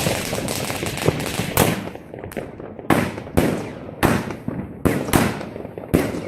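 New Year's Eve fireworks going off: an irregular run of sharp bangs, about one or two a second, each trailing off in an echo, over steady crackling from other fireworks.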